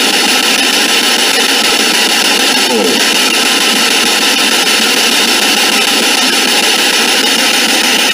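Spirit box (ITC research radio) sweeping through radio stations, its output played through an Altec Lansing portable speaker as a loud, steady hiss of static, with a faint garbled fragment about three seconds in.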